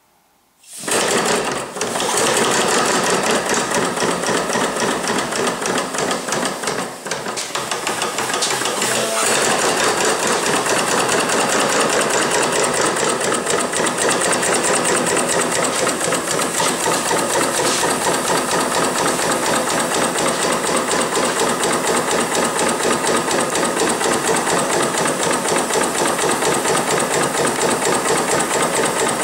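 Stuart Turner 5A model steam engine running slowly on low-pressure compressed air, starting up about a second in. It makes a steady rhythmic beat of exhaust puffs and hiss.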